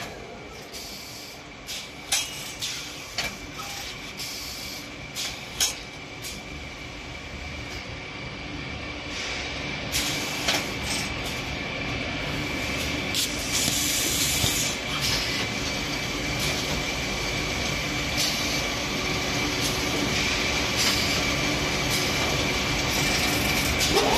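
Automatic cable-tie bag-closing machine working: sharp clacks and knocks from its moving arms and grippers, with hissing, over a steady machine noise and a faint steady whine. The noise grows gradually louder.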